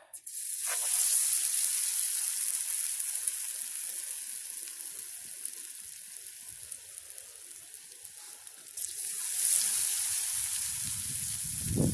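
Battered whiting fillet dropped into smoking-hot oil in a small camping pan, sizzling sharply at once and then slowly dying down. A second piece goes in about nine seconds in and the sizzle surges again.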